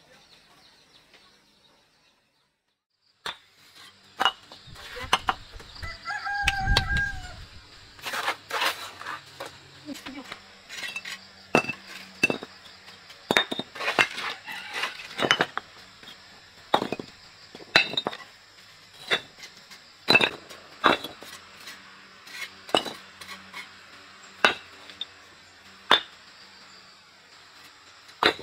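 Irregular sharp knocks and clinks of hand work on hard material, about one or two a second, starting after a brief silence. A rooster crows once, briefly, about six seconds in.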